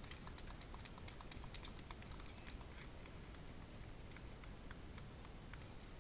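Faint, irregular light clicking and clinking of steel plate armour as armoured fighters move about, thickest in the first couple of seconds and thinning out after.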